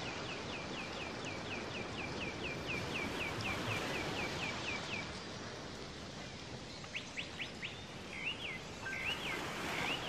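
A bird calling in a fast run of short, identical falling chirps, about four a second, which stops about halfway. A few scattered looping calls follow near the end. All of it is over a steady hiss.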